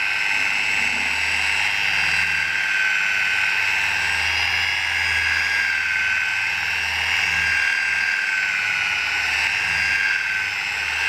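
Electric rotary car polisher running steadily while buffing car paint with a round pad, its motor whine wavering slightly in pitch.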